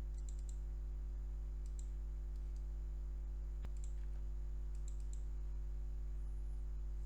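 Steady low electrical hum with a few scattered light computer mouse and keyboard clicks, one sharper click a little past the middle.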